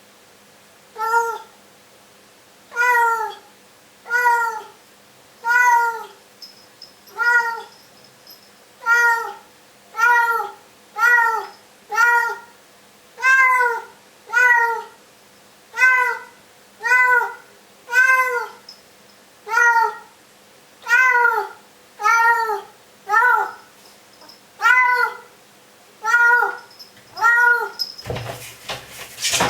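Domestic cat meowing over and over, about one meow a second, each call rising then falling in pitch. A brief clatter near the end.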